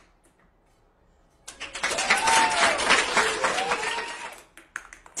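Near silence, then about a second and a half in, a burst of applause with cheering voices that lasts about three seconds and fades out.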